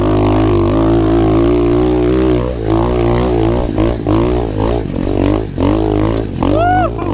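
SSR 125 pit bike's single-cylinder four-stroke engine heard from the rider's seat. It runs steadily for the first couple of seconds, then the throttle is rolled on and off over and over, the engine note rising and falling with short dips in level, as the bike is ridden through whoops.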